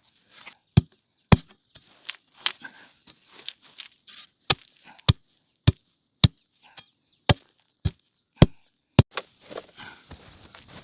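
Repeated chopping blows of a hand tool, about ten sharp strikes roughly half a second apart with a short pause early on, stopping about nine seconds in and giving way to softer rustling.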